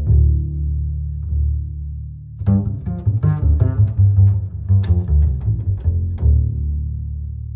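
Background music of low string notes, held at first, then a run of quick plucked notes in the middle that fades near the end.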